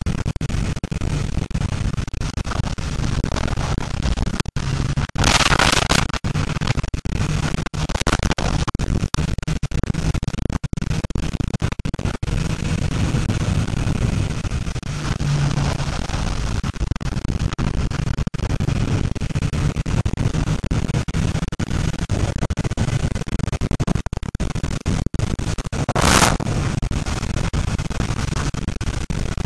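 Wind buffeting a helmet camera's microphone on a moving motorcycle, with the BMW S1000RR's inline-four engine running steadily underneath. The wind noise swells louder briefly about five seconds in and again near the end.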